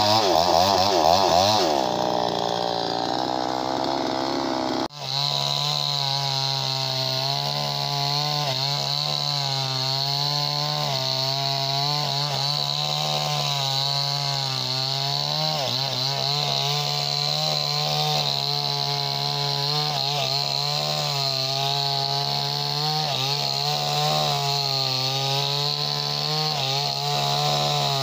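58cc two-stroke chainsaw running at high revs while cutting wood, its pitch wavering up and down as the chain takes the load. It is loudest for the first two seconds, and the sound breaks off sharply for an instant about five seconds in before carrying on steadily.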